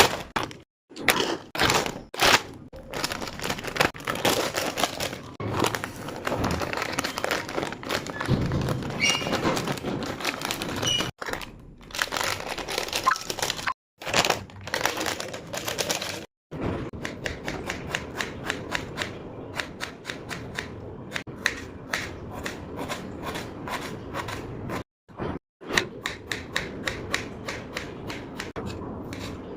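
Kitchen food-preparation sounds in short clips cut together: runs of sharp taps and knocks, packed most closely and evenly in the second half, with abrupt breaks between clips.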